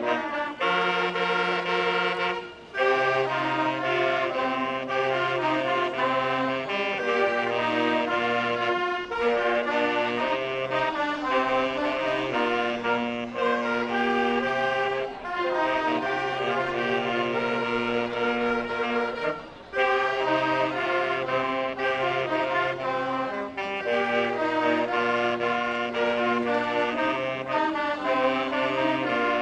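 Saxophone ensemble playing a tune in several parts, a melody over held lower notes, breaking off briefly between phrases three times.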